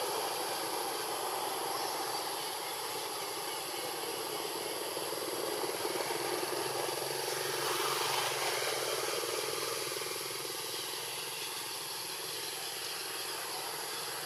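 Steady outdoor background hiss with a faint, constant high-pitched tone, and no distinct animal calls or knocks.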